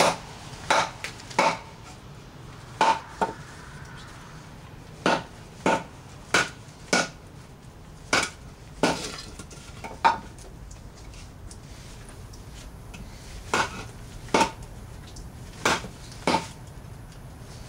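KA-BAR fighting knife being batoned through wood: a baton striking the knife's spine again and again, each blow a sharp knock with a short metallic ring, irregularly spaced, with a pause of a few seconds midway. It is slow going, the knife splitting the wood with difficulty.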